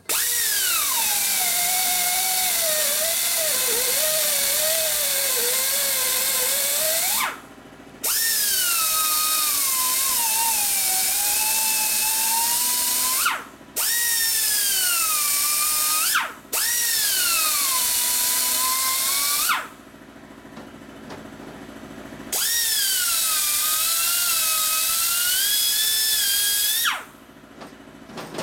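Pneumatic die grinder cutting into the aluminium exhaust area of a 1955 Harley-Davidson panhead cylinder head, in five runs with short pauses between. Its high whine drops in pitch as the bit bites into the metal under load and climbs back as it is eased off.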